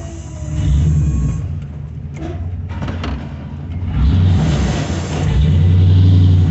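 Engine of a 2005 2500 HD pickup plow truck, heard from inside the cab, revving up and easing off: it swells about a second in and again for the last couple of seconds. A few short clicks sound in the quieter stretch between.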